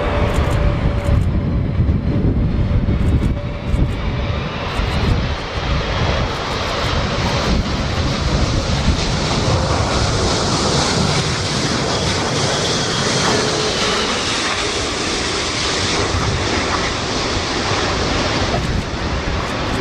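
Antonov An-124-100 Ruslan's four Progress D-18T turbofans running. The jet noise builds from about a third of the way in and stays loud, with a faint whine that rises and then falls. Gusty wind rumble on the microphone is strongest near the start.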